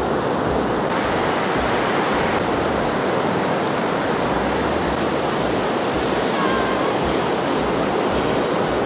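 Steady rush of ocean surf on the beach.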